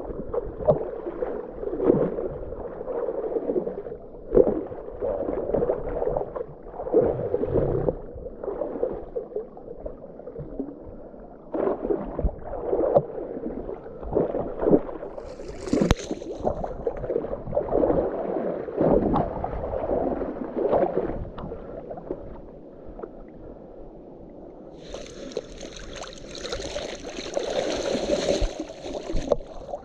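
River water gurgling, sloshing and splashing as a waterlogged kayak seat is handled and hauled through shallow water, in uneven surges. The splashing turns brighter and hissier near the end as water pours off the lifted seat.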